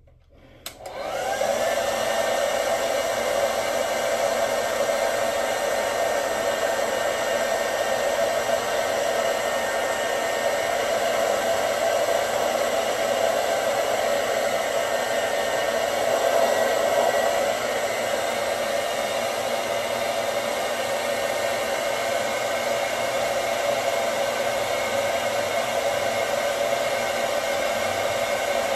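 Handheld hair dryer switched on about a second in, its motor whine rising as it spins up, then running steadily.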